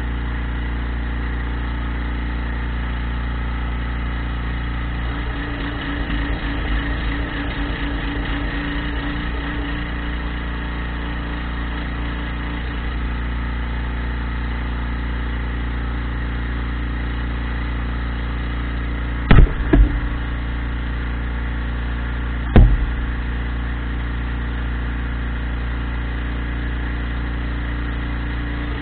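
Portable generator's engine running steadily and loudly. About two-thirds of the way through come two sharp knocks close together, then a third about three seconds later.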